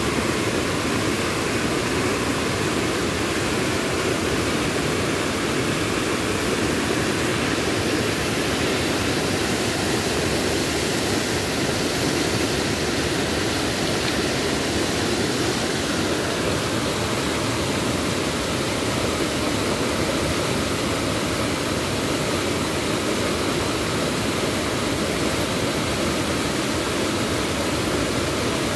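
Steady rushing of a muddy river in flood, its turbulent water tumbling over rocky rapids without a break.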